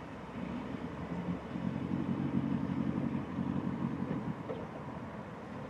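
Low, steady hum of a vehicle engine running, swelling about a second and a half in and dropping back near four seconds, with a couple of faint ticks near the end.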